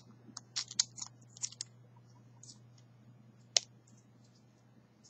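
Small clicks and taps as a CR1616 coin-cell battery is slid and pressed into the battery holder of a Honda remote key fob, a quick run of them at first, then one sharper click about three and a half seconds in.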